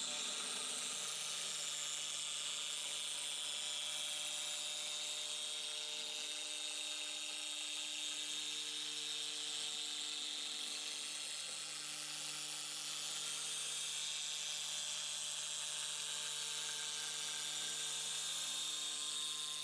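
CNC router spindle running steadily while an O-flute bit cuts through polycarbonate sheet, profiling the sign's outer shape: an even whine with a hiss of cutting over it.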